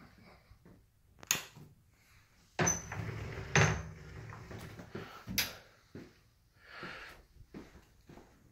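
Scattered knocks and clicks with some rustling, as of a door and footsteps while someone moves through small rooms. The loudest knock is about two and a half seconds in, with another about a second later.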